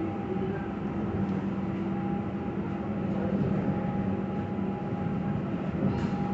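Steady hum and noise inside a Pune Metro train coach, with a few steady low tones from the train's equipment.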